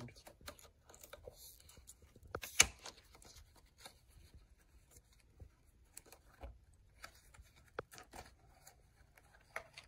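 Product packaging being opened by hand: scattered rustles, scrapes and small clicks, with one sharp snap about two and a half seconds in.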